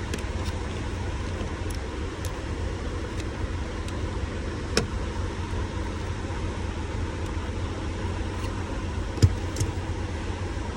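Steady low rumble of idling vehicle engines, with a few sharp clicks as the old turn signal switch is worked free; the loudest click comes about nine seconds in.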